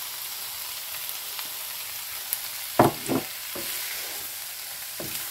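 Shredded carrots, cabbage and capsicum sizzling in a hot wok with a steady hiss. A wooden spatula stirs them, knocking against the pan a few times about halfway through.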